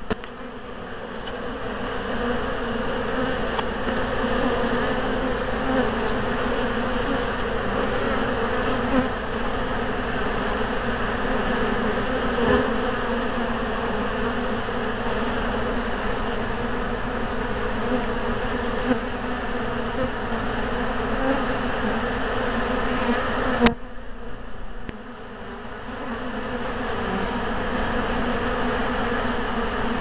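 Honey bees buzzing in a steady, dense hum at the hive entrance. About three-quarters of the way through there is a click, and the hum drops briefly before returning.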